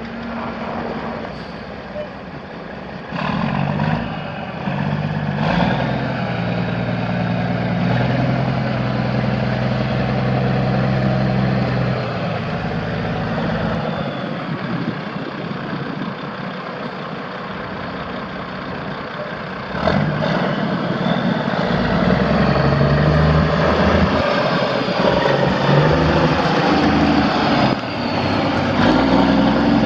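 Caterpillar C15 inline-six turbo diesel engine of a 2003 Kenworth W900 semi truck running, its pitch shifting up and down in steps. It gets louder about twenty seconds in.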